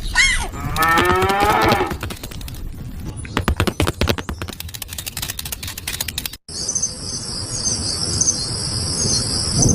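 A drawn-out animal call that slides down in pitch, then a dense run of sharp clicks. After an abrupt cut comes steady, high-pitched chirping like insects.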